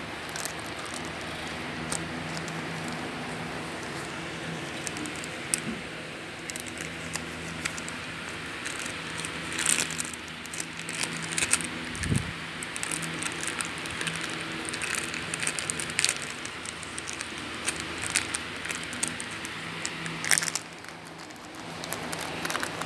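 A Shih Tzu chewing and mouthing a plastic cracker wrapper: irregular crinkles and clicks of the plastic throughout, over a steady low hum.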